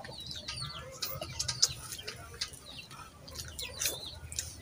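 Small birds chirping, many short high chirps that slide downward in pitch, repeated throughout, with scattered soft clicks and smacks of people eating with their hands.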